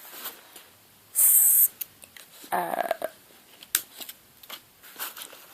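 Handling sounds from a fabric diaper bag: soft rustles and small clicks, with one sharp hissing scrape lasting about half a second, a second in, and a brief muffled rub near the middle.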